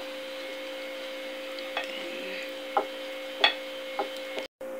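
Plastic scraper cutting through a soft steamed puto cake: about five short sharp clicks, the loudest about three and a half seconds in, over a steady hum.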